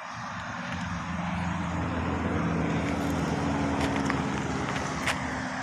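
A motor vehicle's engine passing by, growing louder over the first couple of seconds and then easing off.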